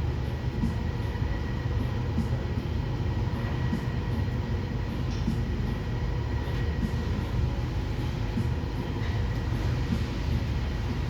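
Steady low mechanical rumble with a constant faint hum, a machine running without a break.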